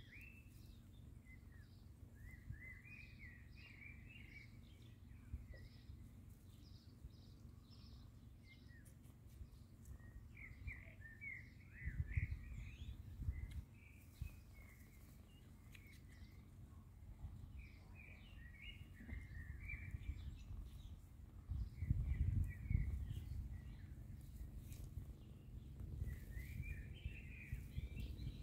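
Small birds chirping in short repeated calls over faint outdoor background noise, with two spells of low rumble, about halfway through and again near three-quarters of the way, that are the loudest sounds.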